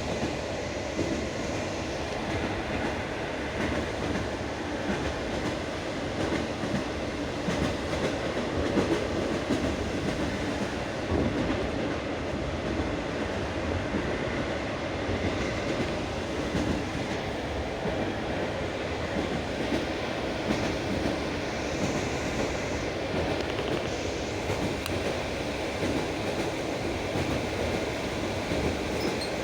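Passenger train running, its coach wheels clattering steadily over the rail joints, heard from inside the coach.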